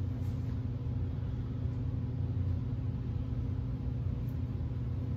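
Steady low hum with a faint buzz above it: room tone from a running fan or similar machine.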